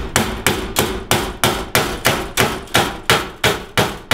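Hammer driving the built-in nail of a recessed can light's mounting leg into a wooden rafter: steady blows about three a second, each with a brief metallic ring.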